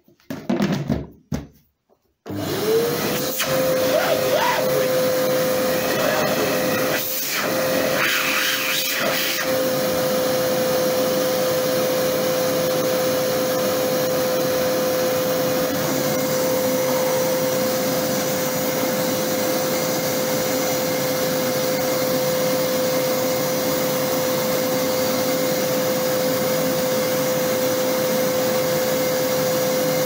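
A few plastic knocks as the lid is fitted. Then, about two seconds in, the Arnica Bora 4000 vacuum cleaner's newly fitted 1400-watt motor starts, whines up to speed within a second and runs steadily at a high whine with a rushing hiss. The hiss surges briefly twice around seven to nine seconds in. This is the test run of the replacement motor for a burnt-out one.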